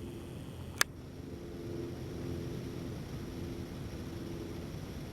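Wind buffeting the camera microphone: a steady low rumble, with one sharp click about a second in.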